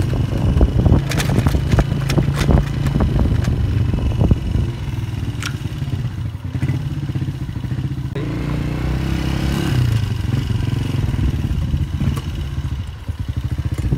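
Motorcycle engine running steadily as it is ridden, with clattering knocks through the first four seconds or so.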